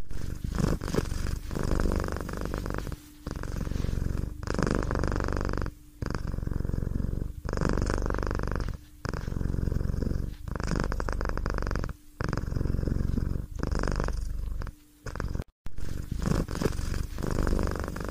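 Domestic cat purring close to the microphone, a low rumbling purr in pulses of one to one and a half seconds with short breaks between them.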